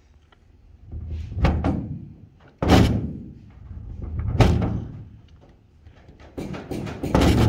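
Cessna 150 wing flap and its linkage being pushed through their travel by hand, with a series of about five loud clunks and bangs, the sharpest about two and a half seconds in. The flap is binding on its bracket, catching at the point where it sticks.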